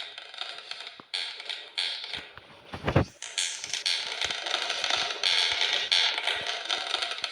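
Metal bells clanging in quick, irregular strokes, with a low thump about three seconds in.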